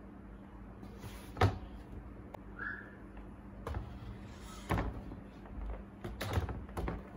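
Handling knocks of things set down on a desk: a spiral-bound sketchbook put down with one loud thump about a second and a half in, then a laptop with an iPad on top moved into place with several lighter knocks.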